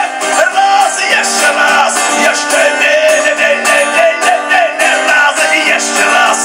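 A man singing live with held, wavering notes, accompanied by an acoustic guitar.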